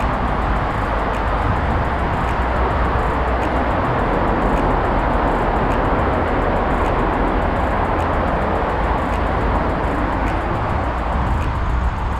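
Steady rushing noise of a bicycle ride: wind on the microphone with rolling tyres, growing a little louder in the middle and easing off near the end.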